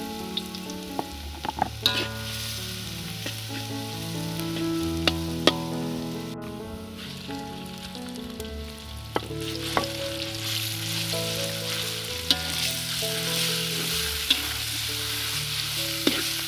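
Minced garlic and minced pork sizzling in hot oil in a steel wok, with a spatula scraping and clacking against the metal as the meat is stirred.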